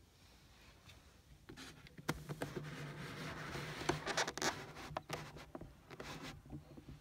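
Newly hatched chicks scrabbling on a towel among eggs: a run of scratching and rubbing with sharp clicks, starting about a second and a half in and dying away near the end.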